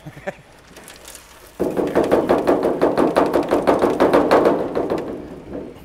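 Dirt and small debris rattling and knocking about inside a hollow aircraft tail surface as it is tipped and shaken to empty it. A rapid, loud clatter starts suddenly about a second and a half in and fades near the end.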